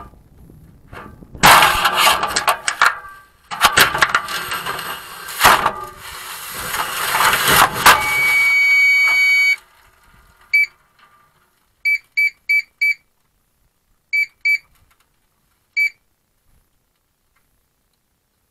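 Model rocket's onboard camera audio: loud rushing wind and rustling with several hard thumps as the rocket comes down and hits the ground. About eight and a half seconds in, a steady electronic beep tone sounds for about a second. It is followed by short electronic beeps in groups of one, four, two and one.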